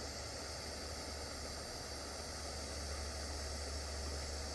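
Steady hiss of a small torch flame, with a low hum, heating a solder seal connector to shrink its glue-lined tubing.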